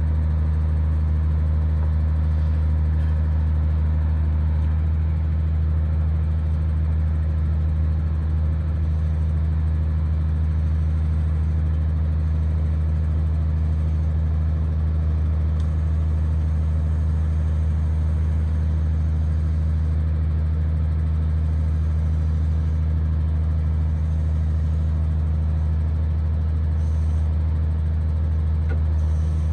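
MB-trac tractor's diesel engine running at a steady, unchanging speed, under load from the hydraulic timber crane lifting and swinging logs onto the trailer.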